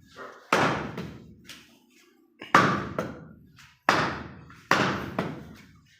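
A butcher's cleaver chopping through goat leg meat and bone onto a chopping block: four heavy strikes, uneven in spacing, each with a short ringing decay.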